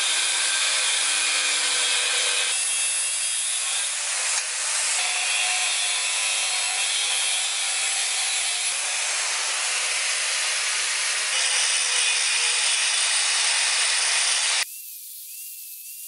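Angle grinder with a thin cut-off disc cutting through an old steel planer blade: a loud, steady grinding screech with a few abrupt changes in tone. Near the end it drops suddenly to a quieter, thinner grinding with a wavering whine.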